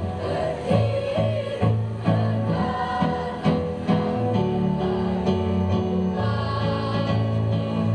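School choir singing a march song in unison, with a steady rhythm.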